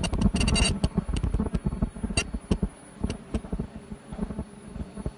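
Automatic bouffant cap making machine running, its rollers and mechanism giving off irregular clicks and clatter over a low mechanical rumble, with a dense rattle in the first half-second.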